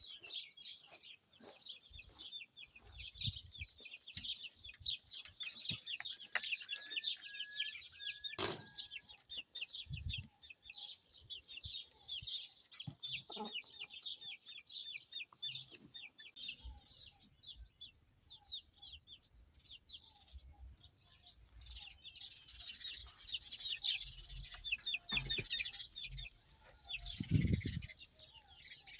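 Many small birds chirping and twittering in a dense, continuous chorus that thins out for a while in the middle, with hens clucking now and then. A couple of low thumps, the louder one near the end.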